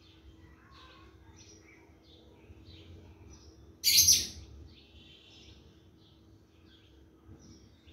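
Small birds chirping faintly in short calls throughout, over a faint steady hum. About four seconds in, a loud, brief scrape of a metal spatula against the metal cooking pot while stirring frying onions.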